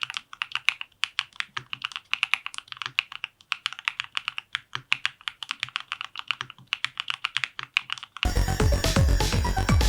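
Fast, continuous typing on a Dry Studio Black Diamond75 mechanical keyboard fitted with DR Rapid ICE switches on an FR4 plate with full foam. Keystrokes come in quick runs with brief pauses. About eight seconds in, electronic music with a heavy beat cuts in suddenly and is louder than the typing.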